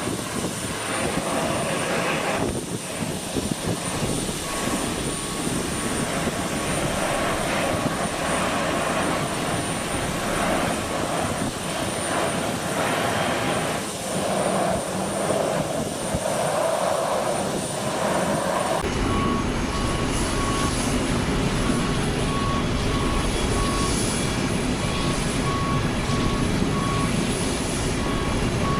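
Parked aircraft on the ground with its engines running steadily at idle. About 19 seconds in it cuts to another recording with a deeper steady rumble and a short beep repeating under a second apart, like a ramp vehicle's reversing alarm.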